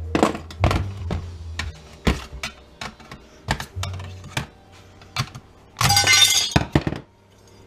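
Sheet-metal chassis of an LCD monitor being pried with a long flat screwdriver: a string of sharp metal clicks and clanks, then a loud grating scrape about six seconds in. Background music with low sustained notes underneath.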